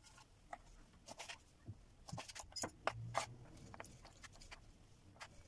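Small clicks and taps from kitchen ingredients and utensils being handled, about a dozen sharp ticks scattered irregularly, the loudest a little over halfway through.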